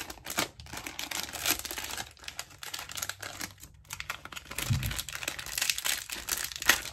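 Thin plastic packaging bag crinkling and rustling in the hands as it is opened, a run of irregular crackles that thins out in the middle and picks up again near the end.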